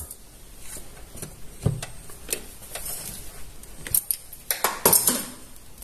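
Light clicks and rattles of small hardware being handled: a power adapter's DC barrel plug and multimeter probe leads picked up and moved about. A short burst of louder clatter comes about three-quarters of the way through.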